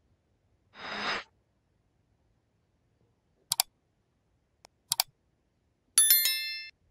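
A short swish, then two quick double clicks a second and a half apart, then a bright ringing chime of several tones that dies away within a second, all over dead silence.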